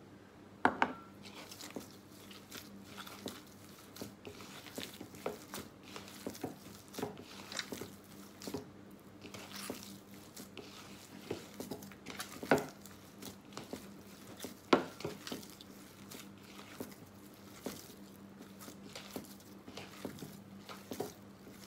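Hands kneading and squeezing soft gulab jamun dough in a mixing bowl: irregular squishy, crinkly handling with small ticks, and a few sharper knocks against the bowl, the loudest about a second in and twice more past the middle.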